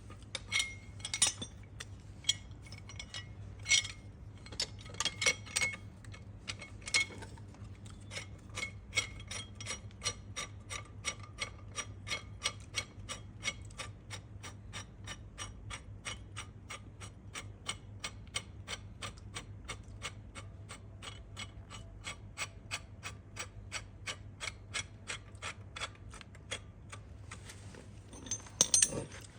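Ratchet wrench clicking as a nut is turned. The clicks are irregular at first, then run steadily at about three a second.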